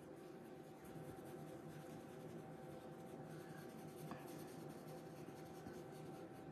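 Pastel pencil shading on Pastelmat paper: faint, steady scratching of pencil strokes.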